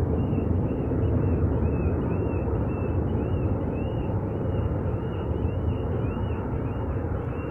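Steady low rumble of jet airliner engines at the airport, with birds chirping over it many times.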